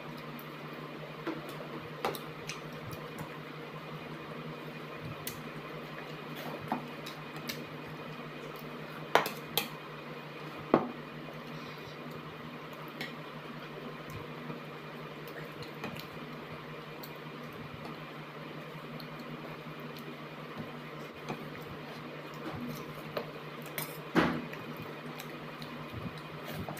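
Eating by hand: fingers working rice and curry on a plate, with scattered clicks and taps and chewing sounds, a few louder clicks about nine, eleven and twenty-four seconds in. A steady low hum runs underneath.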